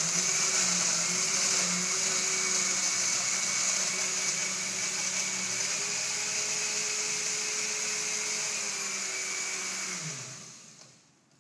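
Countertop blender running at speed, blending a thick shake of ice, peanut butter, milk and protein powder. About ten seconds in it is switched off, and the motor winds down with a falling pitch.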